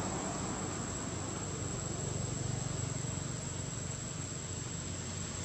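Steady high-pitched insect drone over a constant outdoor hiss and a low hum.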